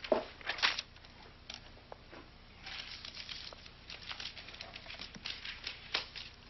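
Handling noises in a small room: a few sharp knocks in the first second, then a run of light, irregular clicks and rustles for the next few seconds.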